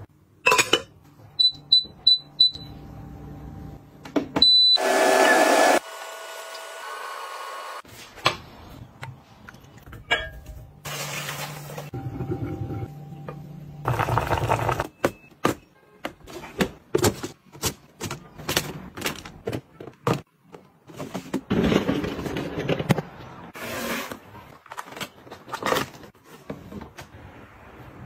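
Kitchen handling sounds: glass lids, bowls and utensils clinking and knocking in quick separate strikes, with a few short electronic beeps from a cooking appliance near the start.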